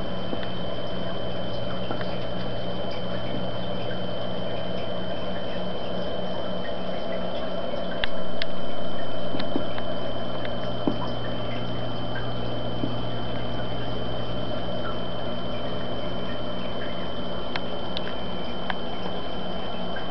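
Steady hum and water noise inside an aquarium, picked up by a submerged camera, with scattered small clicks. The sound gets louder about eight seconds in and fades back over the next few seconds.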